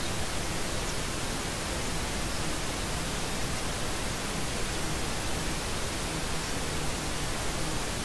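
White noise: a steady, even hiss spread across all pitches, holding a constant level.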